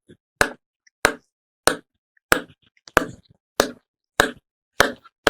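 Mouth-made mimicry of a plastic ball bouncing on a slate: a string of sharp clicks about every 0.6 s, coming a little quicker near the end.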